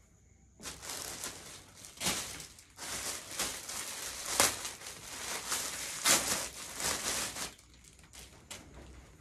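Clothing being handled, rustling and crinkling with a few sharper crackles, from just under a second in until near the end, where it fades.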